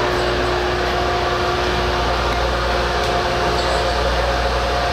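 Steady mechanical hum of an electric train's on-board equipment, with a constant low tone that drops out about two seconds in and a higher tone that carries on.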